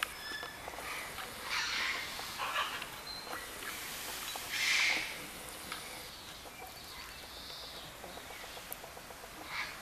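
Peafowl during a white peacock's courtship display: a few short, harsh bursts of sound, the loudest about five seconds in.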